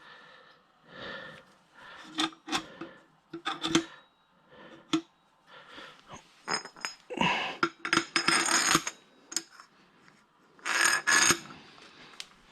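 Metal parts clinking, knocking and scraping as they are handled and fitted, a run of sharp clicks, some with a short metallic ring, in clusters about 2, 4, 7 to 9 and 11 seconds in.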